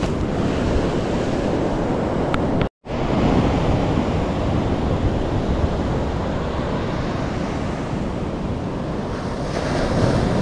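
Sea surf breaking and washing up a sandy beach, a steady rush with wind buffeting the microphone. The sound cuts out for an instant about three seconds in.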